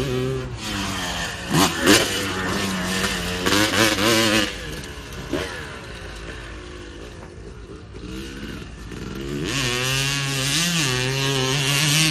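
Single-cylinder two-stroke engine of a 1991 Honda CR250 motocross bike, revving up and down hard as it is ridden round a dirt track, with sharp peaks in the first few seconds. It fades as the bike moves away around the middle and grows loud again as it comes back near the end.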